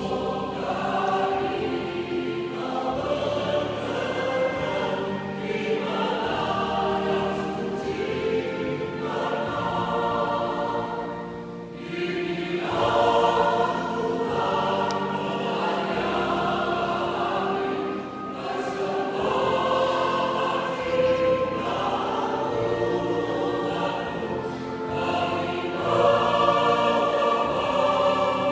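Choir singing a song in several parts, in sustained chords, with two short breaks between phrases.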